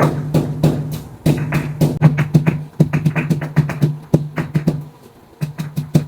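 Cumin seeds being pounded with a pestle in a stone mortar: quick, rhythmic knocks, about four a second, pausing briefly twice.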